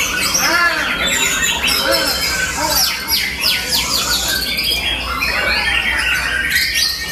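White-rumped shama singing a loud, varied song of whistles and chatter, with runs of quick falling notes in the middle.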